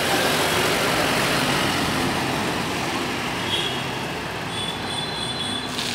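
Street traffic noise: an even wash of road noise, loudest at the start and slowly easing off. Faint thin high-pitched tones and a few short high chirps come in during the second half, and a sharp click sounds at the very end.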